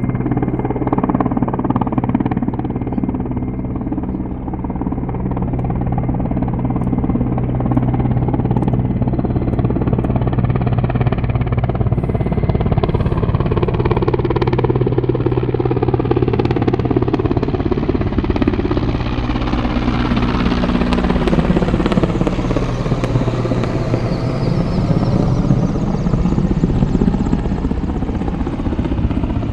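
Helicopter flying, its rotor and engine running steadily and continuously. In the second half the sound grows brighter, with slowly gliding tones.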